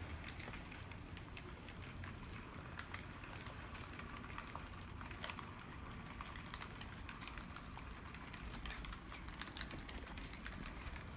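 HO-scale brass model of a Great Northern Q-1 2-10-2 steam locomotive running along the track: a faint low rumble of its motor and wheels, with many small irregular clicks from the wheels on the rails.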